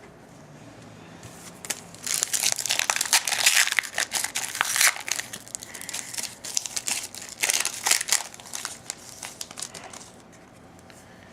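Foil wrapper of a trading card pack crinkling as it is torn open and handled, in dense crackling bursts starting about two seconds in and dying away near the end, loudest in the first few seconds.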